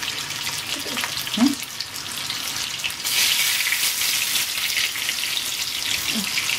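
Hot oil sizzling and crackling as sweet corn pakoda batter deep-fries in an iron kadai. The sizzle gets noticeably louder about three seconds in.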